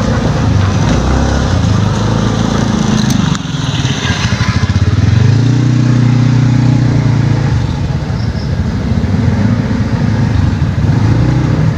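A small engine running, its pitch shifting a few times and loudest around the middle.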